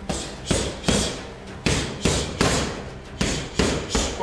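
Boxing gloves smacking into handheld focus mitts, about nine sharp hits in three quick three-punch combinations with short pauses between them.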